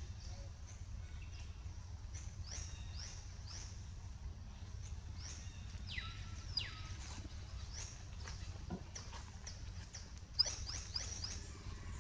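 Short, high-pitched animal chirps sliding downward in pitch, repeated at irregular intervals, with a quick run of several near the end, over a low steady rumble.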